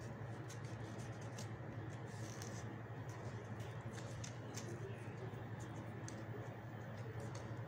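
Strips of green coconut palm leaf rustling faintly as they are folded and threaded through each other by hand, with scattered small clicks and scratches, over a steady low hum.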